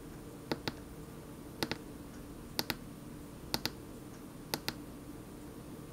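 Small push button on an RC brushless ESC's setup switch being pressed five times, about once a second, each press a quick double click of press and release, stepping through the ESC's programming menu.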